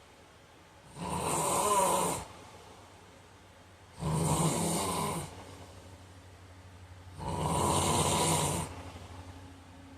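A heavyset man snoring in his sleep: three loud snores about three seconds apart, each lasting a second or more.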